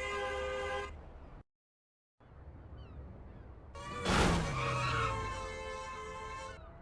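Dramatized car crash sound effects: a car horn blares and cuts off, then, after a moment of silence, a loud crash impact about four seconds in, followed by a car horn sounding steadily until it stops abruptly.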